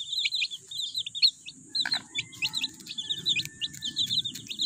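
Domestic chicks peeping in a rapid, continuous stream of short high chirps while pecking rice from a hand. A hen's low clucking joins beneath them from about two seconds in.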